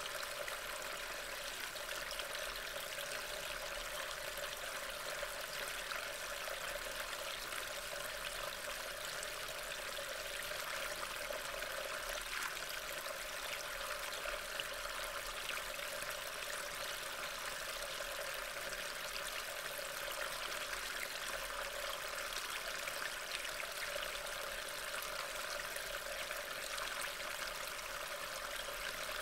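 Steady rain falling in woodland, an even, continuous hiss picked up by a trail camera's microphone.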